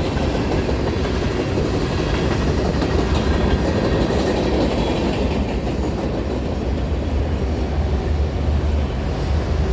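Norfolk Southern freight train's cars passing close by at about 50 mph: a loud, steady rumble and rattle of steel wheels on the rails.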